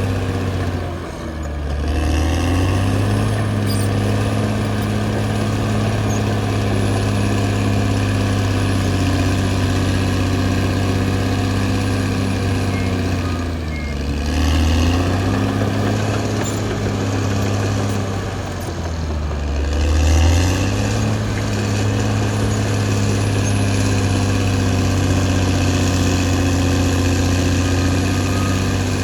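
Caterpillar D6R XL bulldozer's diesel engine running steadily at working revs. Its note sags in pitch and comes back up three times, with a fourth dip right at the end.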